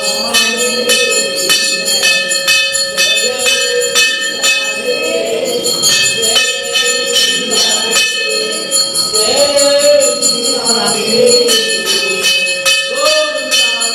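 Temple aarti: a brass temple bell struck rapidly and continuously, its ringing tones held throughout, under a group of worshippers singing together.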